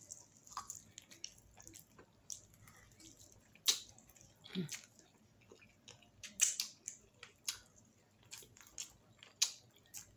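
Close-up mouth sounds of eating saucy chicken wings: wet chewing and irregular lip smacks, with a short low hum about four and a half seconds in.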